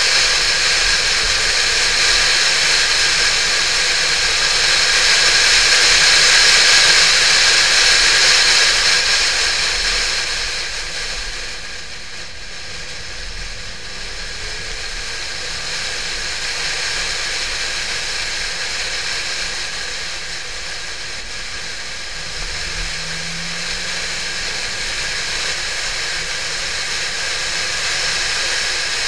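Steady rush of wind noise over a bonnet-mounted camera on a moving Porsche 911 (type 996). It eases as the car slows for a junction about ten seconds in and builds again toward the end as it picks up speed.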